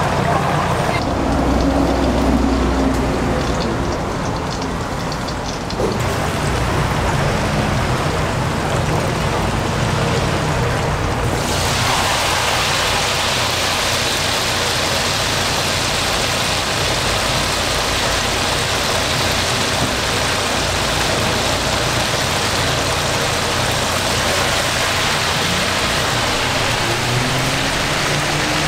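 Hot oil in a commercial deep fryer bubbling and sizzling steadily around whole chickens. The sizzle becomes much louder and brighter a little over a third of the way in.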